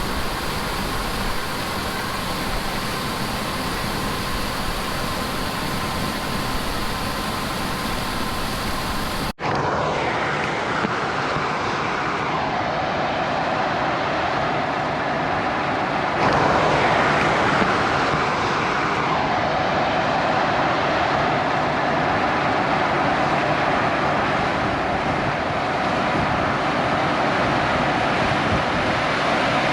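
Heavy harvest machinery in the field, combine and tractor engines running with a steady drone. The sound cuts abruptly about nine seconds in, and the drone swells louder for a few seconds around the middle, as a machine passes close.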